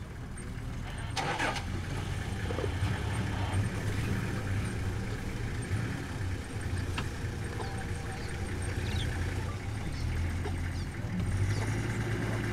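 Vehicle engine idling with a steady low rumble that swells and eases a little.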